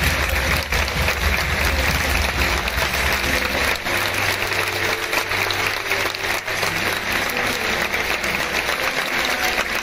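Stadium crowd applauding steadily, the dense patter of many hands clapping, with a low rumble underneath for the first four seconds or so.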